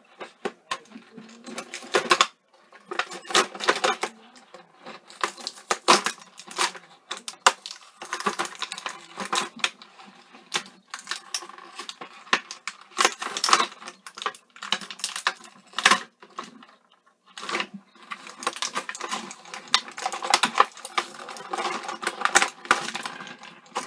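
Plastic blister packaging crackling and clicking as it is pried and peeled off a toy set's cardboard backing by hand, in irregular bursts with short pauses.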